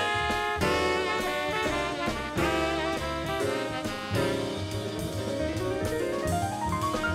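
Recorded jazz with horns, saxophone among them, over a drum kit and bass, playing continuously; near the end a line of notes climbs step by step.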